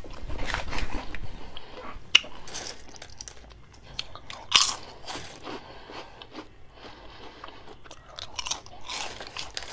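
Crunchy snack chips being bitten and chewed: sharp crunches, loudest about two seconds in and again about halfway, with softer chewing crunches between.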